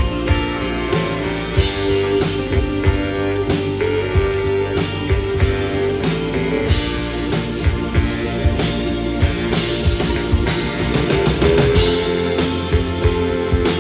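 Live rock band playing an instrumental passage without vocals: electric guitars and bass over a drum kit keeping a steady beat.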